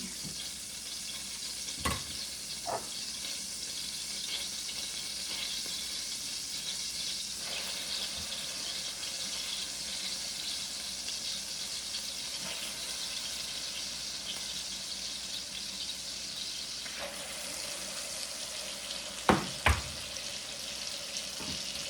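A hot frying pan sizzling steadily from searing tri-tip steak. A sharp knock about two seconds in and two more close together near the end, from utensils on the pan or plate.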